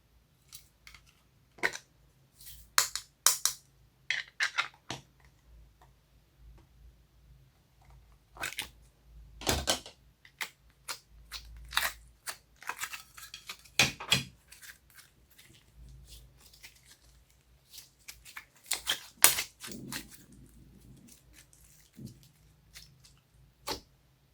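Homemade slime squished and pressed by hand, giving irregular sticky pops, clicks and crackles from trapped air.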